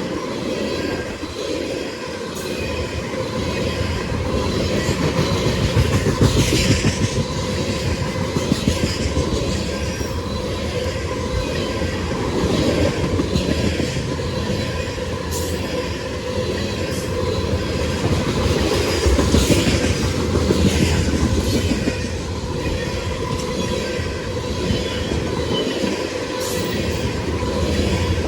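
CSX freight train's cars rolling past, steel wheels clacking over the rail joints, with a thin steady wheel squeal.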